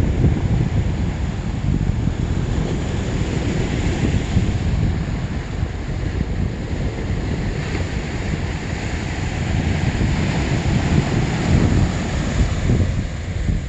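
Wind buffeting the phone's microphone in gusts, over the steady wash of waves on a pebble beach.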